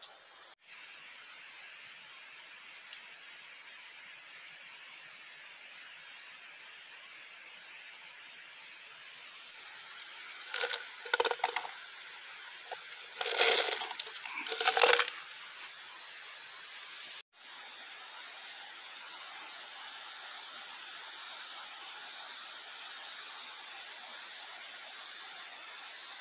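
Small dry beans poured from a container into a metal pan with a crank stirrer, rattling and clinking in a few short runs about ten to fifteen seconds in. Underneath is a steady high hiss of forest insects with one thin unbroken tone.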